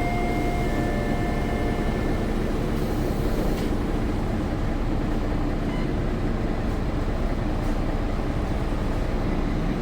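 Steady running rumble of a bus, engine and road noise. A couple of steady high tones are held at the start and stop about two seconds in.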